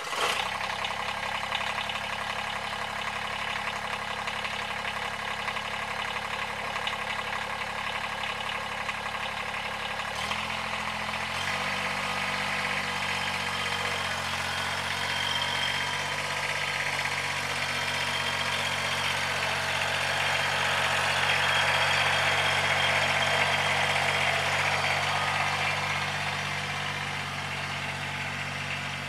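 Kubota BX1880 sub-compact tractor's three-cylinder diesel engine running steadily. Its engine speed steps up about ten seconds in, and it runs louder for several seconds past the middle while the loader bucket is filled with brush.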